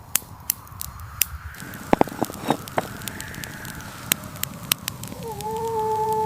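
Scattered sharp crackles over a steady rushing background, and about five seconds in an animal's long, steady howl begins, sinking slightly in pitch.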